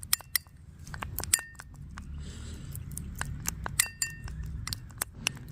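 Spoon stirring honey and ground kalonji seed in a bowl, clicking and clinking against the bowl many times in an uneven rhythm; a few of the clinks ring briefly.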